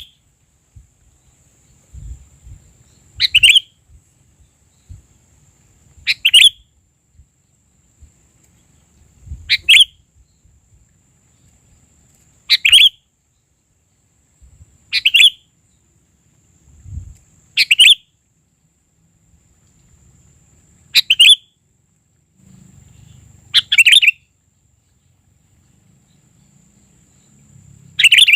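Sooty-headed bulbul calls: a short chirping phrase repeated about every three seconds, as used to lure bulbuls in trapping.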